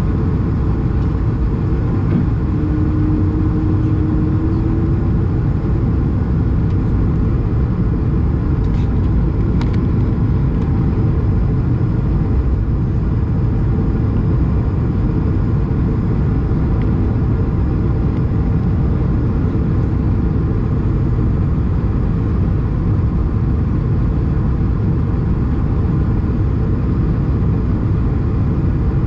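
Steady cabin noise inside an Airbus A220 on descent: the rush of air and the hum of its Pratt & Whitney PW1500G geared turbofans, heard at a window seat by the wing. A faint short tone joins briefly a few seconds in.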